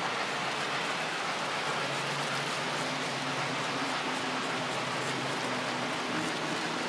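Lionel model trains running on a three-rail O-gauge layout: a steady rolling whirr of wheels on track, with a faint motor hum.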